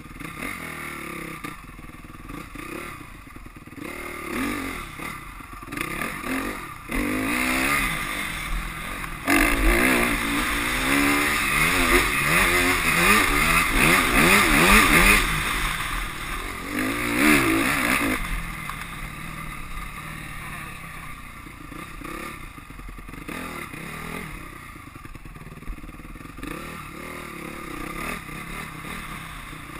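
2010 Honda CRF250R's single-cylinder four-stroke engine revving up and down as the dirt bike is ridden. The revs run high and loud for several seconds in the middle, then drop back to lighter throttle.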